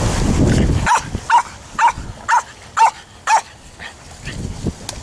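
A Jack Russell terrier barking six short, sharp barks in a steady rhythm, about two a second. Wind rumbles on the microphone for about the first second, before the barks.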